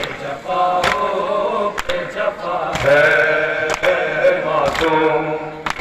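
Male voices chanting a noha, an Urdu mourning lament, in a group, with a sharp slap about once a second from rhythmic chest-beating (matam) keeping time.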